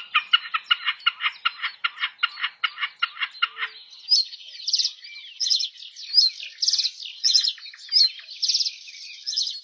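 Birds calling: a fast run of evenly repeated notes, about five a second, slows and stops about four seconds in. A higher-pitched bird then repeats short chirping phrases a little faster than once a second.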